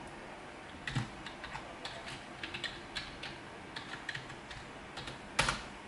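Typing on a computer keyboard, irregular key clicks while logging in, with one louder key strike near the end.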